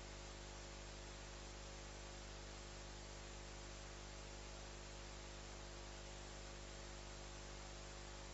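Faint, steady electrical hum and hiss from the recording system, with no other sound.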